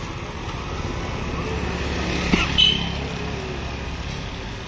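Steady low street-traffic rumble. A little past halfway comes a sharp knock followed by a short high ring: a cleaver chopping fish on a wooden block.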